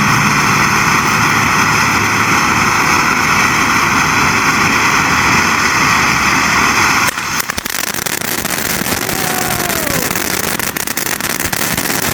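Winda Fireworks 'Light House' ground fountain spraying with a loud, steady hiss. About seven seconds in, the hiss cuts off abruptly and gives way to a rougher spray full of sharp crackling pops as the fountain changes stage.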